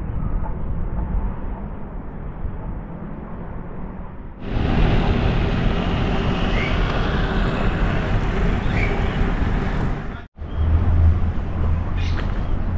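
Outdoor ambience with steady traffic noise. The sound changes abruptly about a third of the way in and cuts out for an instant about two-thirds in, as the recording jumps between scenes.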